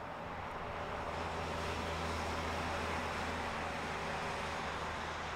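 Audi S3 sedan with its 2.0 TFSI turbocharged four-cylinder driving past at speed: engine and exhaust note mixed with tyre noise. It swells to its loudest about two to three seconds in, then fades.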